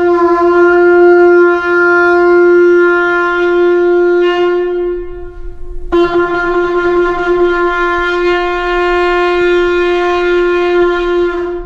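Shofar blown in two long, steady blasts on one held note, each about six seconds. The second blast starts about six seconds in and stops abruptly near the end.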